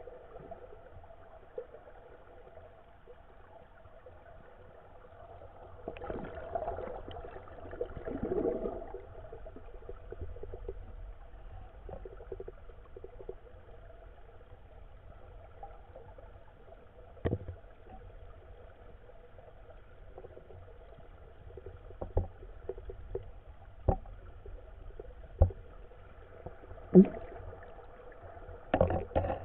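Muffled underwater river ambience heard through a submerged camera: a low steady rumble of moving water with a swell of gurgling a few seconds in, then a handful of sharp knocks in the second half, the loudest near the end.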